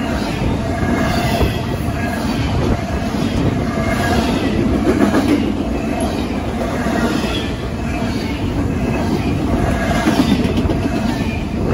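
BNSF double-stack intermodal freight train's loaded well cars passing close at speed: a steady, loud rumble and clatter of steel wheels on the rails.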